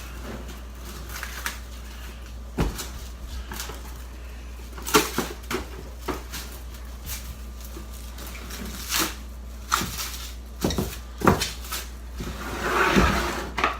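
Plastic cling wrap being stretched and wrapped tightly around a food container, with scattered sharp crinkles, taps and knocks, and a longer rustle near the end.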